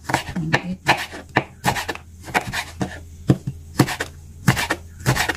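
Kitchen knife slicing red chili peppers on a wooden cutting board, the blade knocking the board in a quick, uneven run of about three cuts a second.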